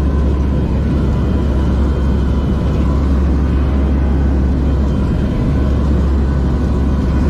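Aircraft engines droning steadily in flight: a loud, constant low rumble with a faint steady hum above it.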